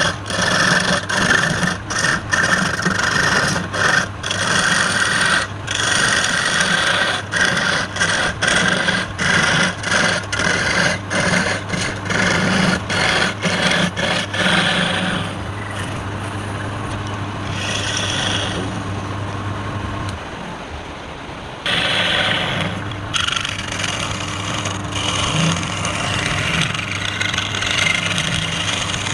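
Woodturning: a tool scrapes and cuts wood with a loud rasping sound, broken by many short gaps as it is lifted and reapplied, over a steady motor hum. The hum stops about two-thirds of the way through, and after a brief lull the rasping starts again.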